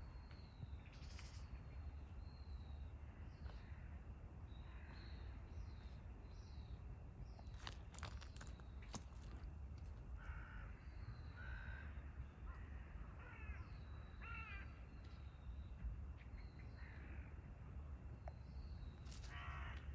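Wild birds calling: short high chirps scattered throughout, with a run of lower, harsher calls about halfway through, over a faint steady low rumble of outdoor air. A few sharp clicks sound about eight seconds in and again near the end.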